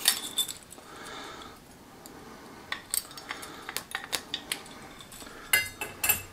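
Light metallic clinks and taps as the old big-end needle roller bearing and thrust washers are lifted off the crankpin and handled, with a louder cluster of clinks near the end.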